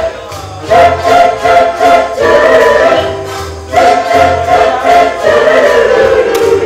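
University student choir singing a lively song in several-part harmony.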